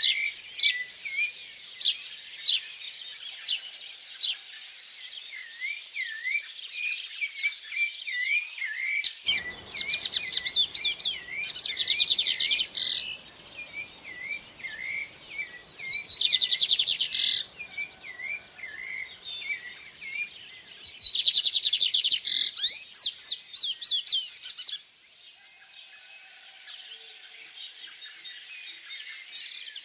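Several birds singing and calling together: a quick repeated dipping chirp runs under higher notes, and rapid bright trills come in several times. A faint low rushing sound starts about a third of the way through and cuts off suddenly near the end.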